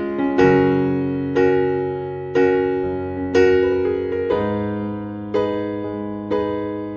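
Background music: gentle keyboard (piano-like) chords struck about once a second, each ringing and fading before the next.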